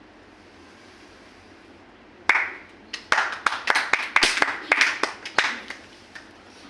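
A few people clapping: scattered, uneven claps start a little over two seconds in and die away after about three and a half seconds.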